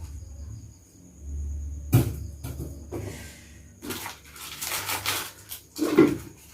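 Packaging and parts being handled during an unboxing: a sharp knock about two seconds in, a stretch of rustling and scraping around the fourth and fifth seconds, and another knock near the end.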